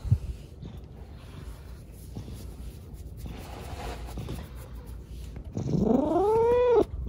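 A cat meows once, a long drawn-out call that starts low, rises steeply in pitch and ends abruptly, about six seconds in. Before it there is faint rustling and a soft knock at the very start.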